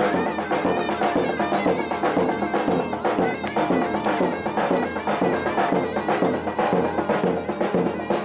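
Turkish folk music: a shrill, ornamented zurna melody over a steady davul drum beat.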